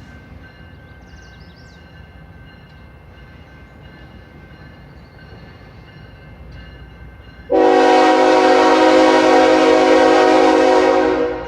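A low rumble, then about two-thirds of the way in a CN freight locomotive's horn sounds one long, loud, steady chord of several notes, held for about four seconds before cutting off.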